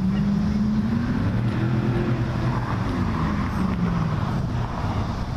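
A road vehicle's engine pulling away, its pitch climbing and then dropping off near the end, over steady city traffic noise.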